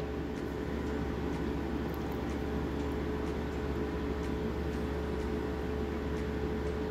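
Steady background hum and hiss with one constant mid-pitched tone, like an appliance or fan running in the room.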